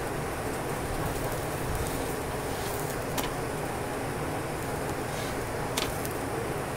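A wooden spatula working a paratha on an iron tawa, with two sharp taps about three seconds and about six seconds in, over a steady rumbling hiss.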